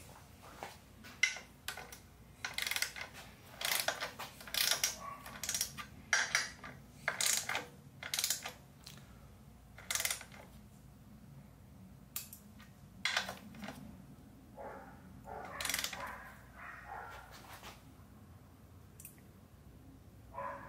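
Ratchet wrench clicking in many short, irregular strokes, tightening the engine mount bolts to their torque spec. The strokes are dense over the first half and become fewer and quieter later.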